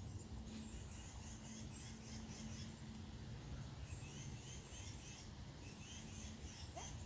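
Songbirds singing: two runs of short, quickly repeated high notes over a steady low background rumble.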